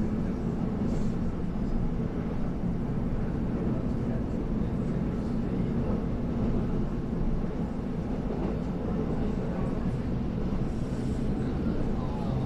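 Steady running noise inside the cabin of the EMU713+EMU714 electric multiple-unit local train under way: a continuous low rumble that holds an even level.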